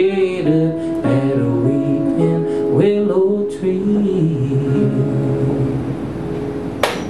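Two acoustic guitars playing the closing bars of a folk song, with long held notes. Applause and cheering break out suddenly just before the end.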